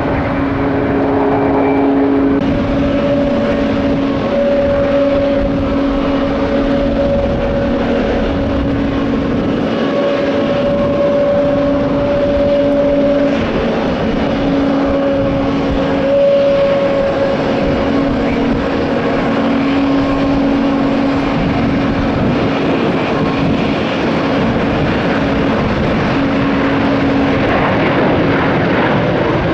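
Jet airliner engines, a Boeing 737-800's CFM56 turbofans, running with a steady drone under a rushing roar and a pair of held, slightly wavering tones.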